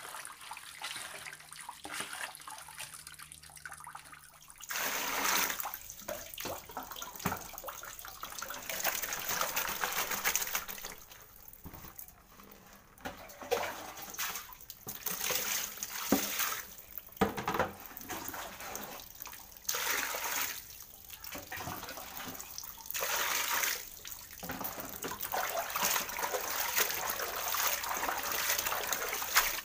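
Water sloshing and splashing in a tub as gloved hands stir and rinse sliced raw potatoes, with a plastic basin scooping and pouring water. It comes in uneven bursts, fainter for the first few seconds.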